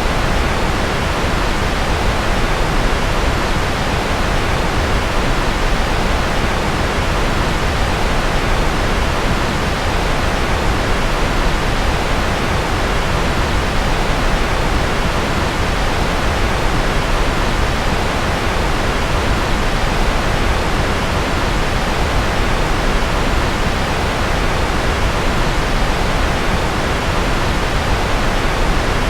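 Steady, unbroken rushing noise from a sleep-noise track billed as rocket noise. It is heaviest in the deep low end, dull at the top, and does not change in level.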